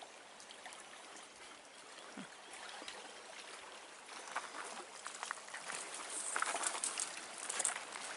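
Footsteps crunching on the stones of a cobbled beach begin about four seconds in and grow more frequent, over a faint, steady rush of water.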